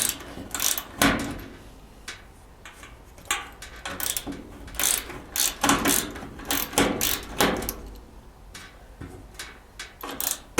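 A 1/4-inch nut driver backing out the screws on the dryer's rear terminal-block cover, with irregular clicks and metal scrapes.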